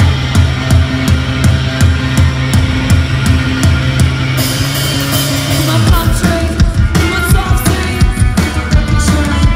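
Punk rock band playing live through a large outdoor PA, heard from the crowd: electric guitar, bass guitar and drums with a woman singing. Held bass notes give way to a choppier, drum-driven part about six seconds in.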